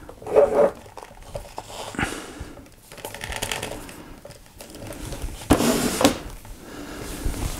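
Hands handling a large plastic action figure to stand it upright, with irregular rustling, crinkling and light knocks; the loudest rustle comes about two thirds of the way through.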